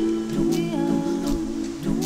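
Music: several notes held together in harmony, shifting pitch in steps every half second or so, with a few short sharp attacks.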